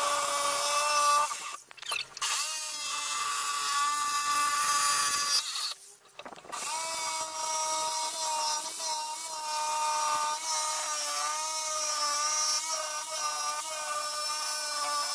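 Fujima corded jigsaw cutting plywood, its motor running with a steady whine whose pitch wavers slightly. It stops twice briefly, about a second and a half in and again around six seconds, then starts again.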